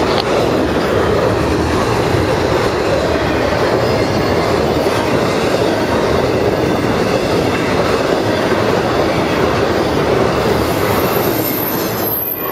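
BNSF intermodal freight train of truck trailers on flatcars rolling past: a steady, loud noise of steel wheels running on rail, easing off slightly as the last cars go by near the end.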